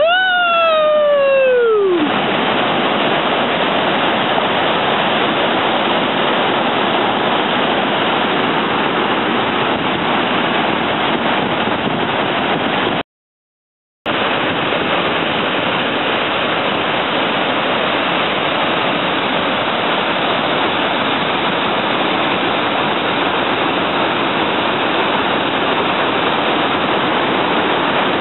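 Waterfall rushing in a steady roar of falling water, with one high call near the start that rises and then slides down over about two seconds. The sound cuts out completely for about a second midway.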